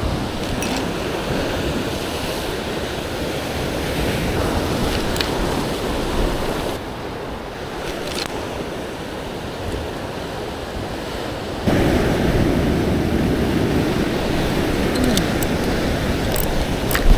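Sea waves washing against the rocks, with wind buffeting the microphone; the wash grows louder about twelve seconds in. A few faint clicks sound over it.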